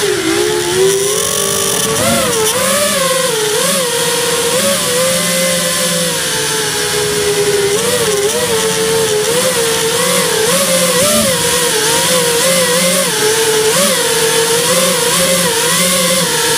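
Electric motors of a small FPV drone whining, with a pitch that rises and falls over and over with the throttle.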